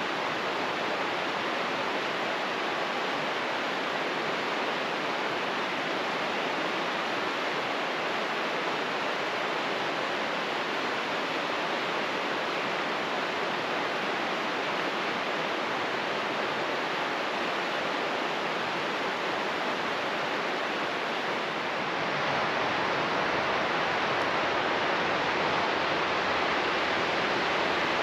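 A river's flowing water, a steady even rush with no breaks. About three-quarters of the way through it gets a little louder and deeper.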